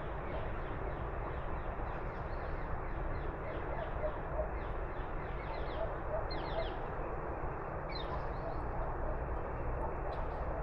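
Small birds chirping: many short, quickly falling chirps, coming in quick runs around the middle and latter part, over a steady rushing background noise.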